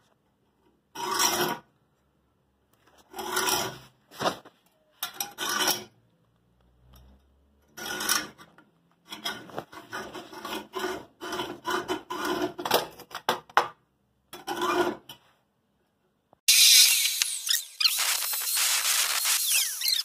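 A series of short rasping, scraping strokes, about half a second each, coming closer together in the middle. A few seconds before the end a louder, continuous harsh grinding noise sets in.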